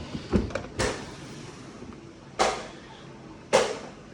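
Handling noise from a cardboard toy box being turned and moved: four or five short knocks and scrapes, spaced about a second apart.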